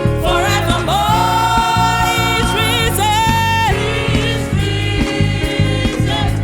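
Gospel choir music: a voice holds long, wavering sung notes without clear words over a bass-heavy band with a steady beat.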